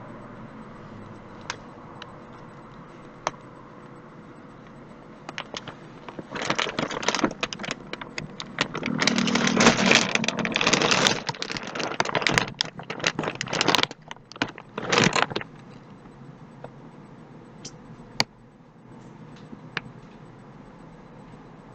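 Clattering, rattling handling noise in a dense run of short bursts lasting several seconds, loudest in the middle, with a few sharp clicks before and after.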